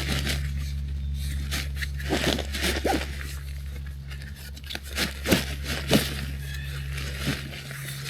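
Backpack nylon rustling and crinkling as the pack is handled and packed, with irregular small clicks and knocks of gear and straps.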